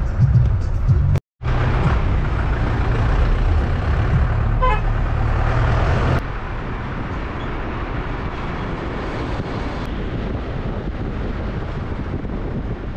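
Engine, road and wind noise from a car driving along a highway. A short horn toot comes about a third of the way in. The noise cuts out for a moment about a second in and drops a step in level about halfway through.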